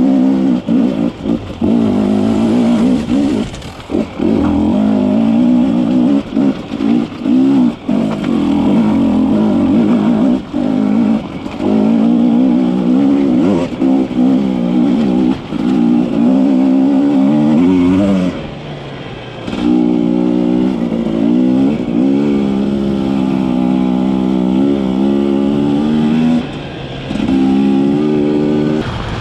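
Quad bike engine heard on board while riding, the throttle opening and closing again and again with short drops in between. About two-thirds of the way through it falls back briefly, then climbs in pitch and runs steadier at speed.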